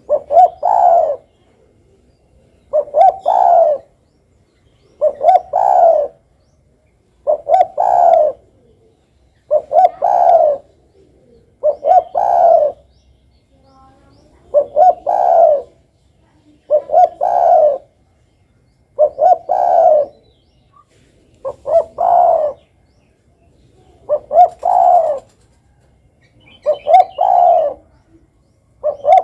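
Spotted dove (derkuku) cooing in a steady repeated pattern, about one phrase every two seconds. Each phrase is two or three quick short notes followed by a longer coo.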